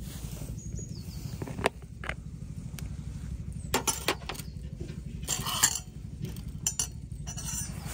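Clip-lock plastic lid of a glass food container being unsnapped and lifted off, sharp clicks about two seconds in and again around four seconds, then a metal spoon clinking and scraping in the glass dish. A steady low rumble runs underneath.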